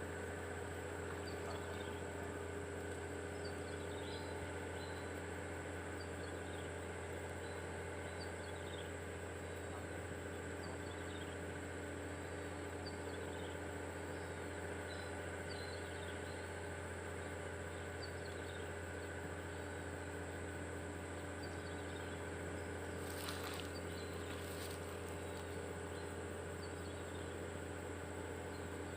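A steady low hum with faint short chirps recurring every second or so, and two brief clicks near the end.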